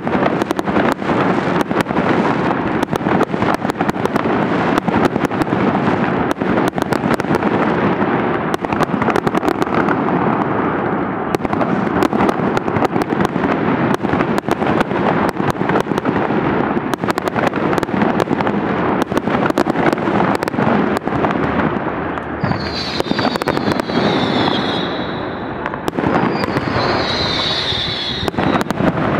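Large fireworks display: a dense, continuous barrage of bangs and crackling shells. Near the end, two high whistles each slowly fall in pitch over the bangs.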